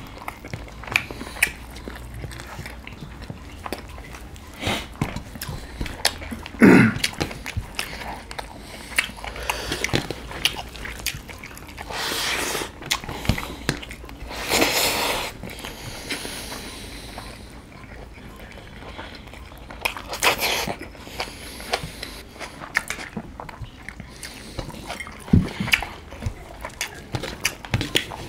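Close-up mukbang eating sounds: wet chewing and lip smacking of spicy chicken biryani eaten by hand, many short mouth clicks, with a brief grunt about a quarter of the way in and a few longer breathy bursts near the middle.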